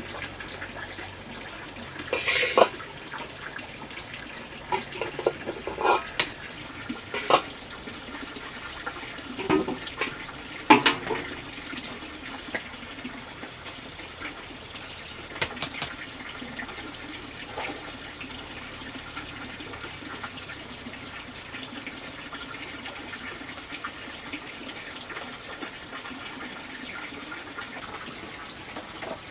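Water running steadily, with scattered knocks and clatters at first and a quick run of clicks about halfway through.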